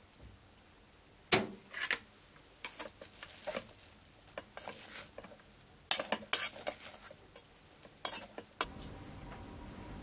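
Utensils clinking and tapping against a ceramic bowl: irregular sharp clicks in small clusters, as when handling and stirring in a rice bowl. Near the end the clicks stop and a steady low hum begins.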